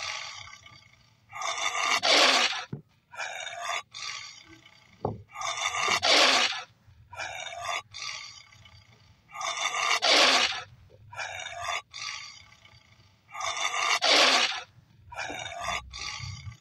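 Recorded jaguar growls played by the animal app for its animated jaguar: a noisy growl about a second long alternating with a shorter one, the pair repeating about every four seconds as a loop.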